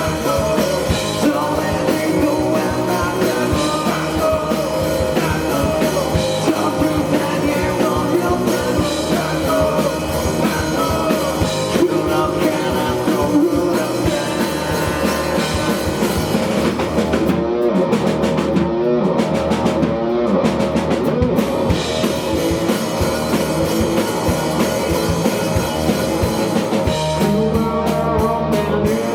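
A live indie rock band playing: electric guitar, bass and drum kit under a sung vocal line. The cymbals drop out for a few seconds past the middle and come back near the end.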